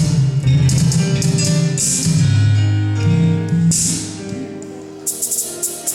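A live band playing at a sound check, guitar and drums with a held bass line. The playing thins out about four seconds in, then a few drum hits come near the end.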